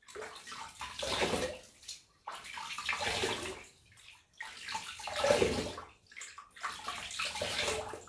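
Water splashing: four separate splashes about two seconds apart, each a rush of water that dies away over a second or two, the third the loudest.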